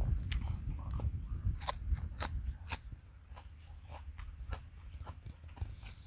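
Close-miked chewing of a mouthful of food, with crisp crunches and wet mouth clicks. Wind buffets the microphone with a low rumble for the first half, then eases.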